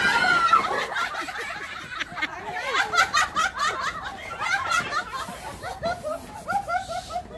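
A group of people laughing together, several voices overlapping, loudest in the first second.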